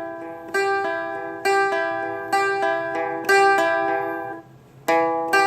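Seagull Merlin, a four-string dulcimer-style guitar, playing a repeating solo pattern: a bass string plucked, then the strings raked high, middle, low. The notes ring on between strong attacks about once a second, with a brief break about four and a half seconds in before the pattern starts again.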